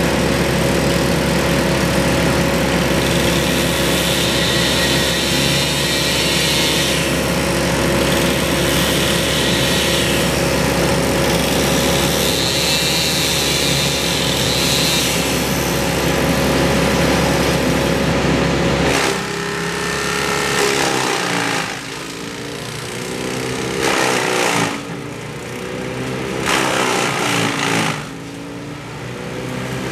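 Engines of tree-removal power equipment running steadily under a deep drone, with stretches of added high-pitched hiss. About two-thirds of the way through the deep drone stops and what remains surges and falls in pitch again and again.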